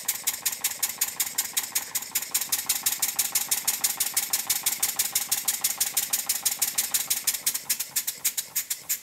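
Model Stuart beam engine running on compressed air, giving a rapid, even exhaust chuff about six times a second that slows a little and fades near the end. The valve timing is nearly right but still needs a small tweak.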